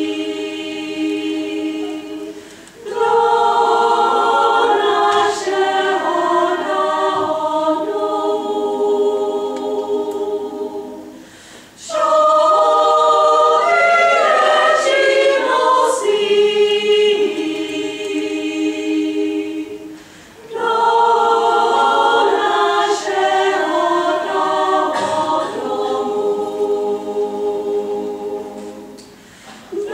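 Women's choir singing a Czech folk song a cappella, in phrases about nine seconds long, each ending with a brief dip before the next begins.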